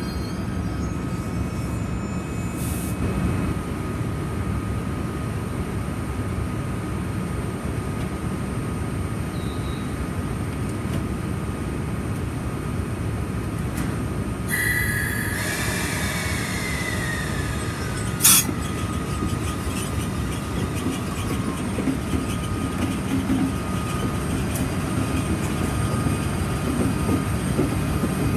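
Train noise: a steady rumble of wheels on rail that grows toward the end as an EF65 electric locomotive hauling a freight train draws close alongside. About halfway through, a whine falls slowly in pitch over several seconds, with a single sharp click in the middle of it.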